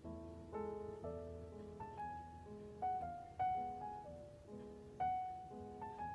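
Background piano music: a slow, gentle melody of single notes and chords, each note struck and left to fade.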